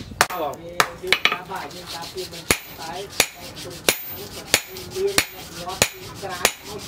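Hand hammer striking a red-hot steel knife blade, cut from a tractor disc, on a steel anvil block: sharp metal-on-metal blows at a steady pace, about one and a half a second.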